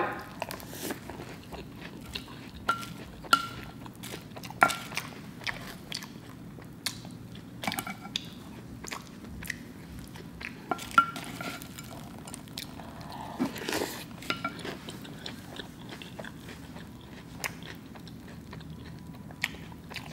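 Close-up mouth sounds of chewing crunchy puffed cereal, with sharp crunches scattered irregularly throughout.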